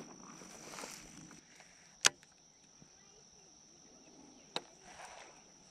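Steady high-pitched insect buzz in summer vegetation, with two sharp clicks: a loud one about two seconds in and a lighter one about four and a half seconds in.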